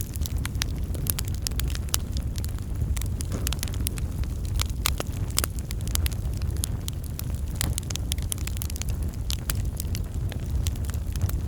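Wood fire in a fireplace crackling, with frequent sharp, irregular pops over a steady low rush of the flames.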